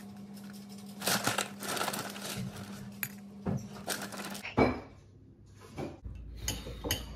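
Shreddies wholegrain cereal poured from the box into a bowl, the dry squares rattling and tumbling in, followed by a few separate sharp knocks, the loudest about four and a half seconds in. A few light clinks near the end.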